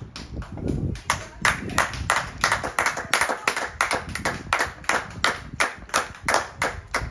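Hands clapping in a steady, even rhythm of about three claps a second, starting about a second in, over a low rumble.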